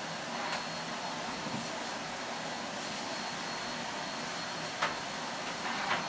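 Steady rushing drone of a running electric blower motor with a thin high whine, with a few faint clicks and one sharper knock near the end.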